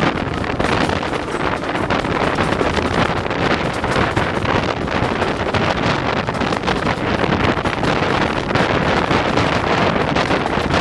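Steady wind buffeting the microphone held out of the window of a moving train, a loud rush that leaves little of the steam locomotive to be heard.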